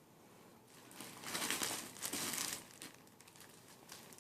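Plastic packaging crinkling as items are handled and unwrapped, loudest in a stretch from about one to two and a half seconds in.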